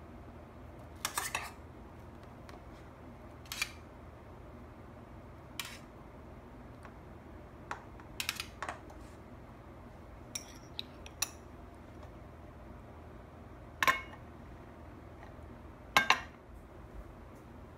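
Metal spoon clinking against a metal tin and a small ceramic bowl while scooping cherry tomatoes: about ten scattered, irregular clinks, some with a short metallic ring. Near the end the ceramic bowl is set down on a ceramic plate, the loudest knock.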